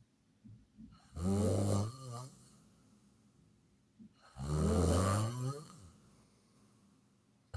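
A person snoring: two loud, pitched snores about three seconds apart, each lasting about a second, with a third beginning at the very end.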